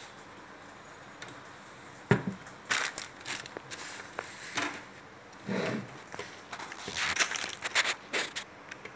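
A single knock as the hard plastic camera housing is set down on a desk, then a run of crinkling and rustling as plastic bags and a paper manual are handled and shuffled about.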